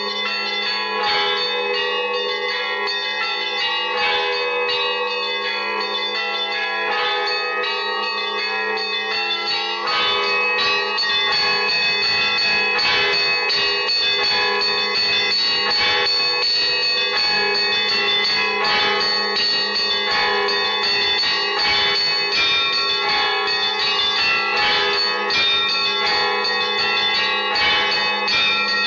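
Russian Orthodox church bells rung together in a midday peal, many bells struck in quick succession over a steady low hum from a large bell. The ringing grows fuller and a little louder about ten seconds in.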